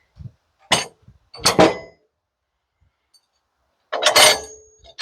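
Knocks and clanks of boards and the steel parts of a sawmill bed being handled: two about a second apart early on, then a louder clank around four seconds in that rings briefly like metal.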